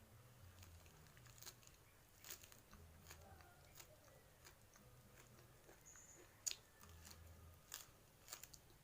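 A person chewing and crunching fried mujair fish and raw papaya leaves with the mouth close to the microphone: scattered sharp clicks and crunches, the sharpest about six and a half seconds in.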